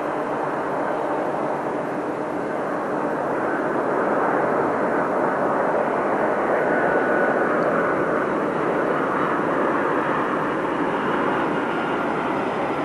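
Boeing 747-400's four General Electric CF6-80C2 turbofans running at taxi power as the jet turns, a steady engine noise that swells a little through the middle and then eases. A faint whine sits on top.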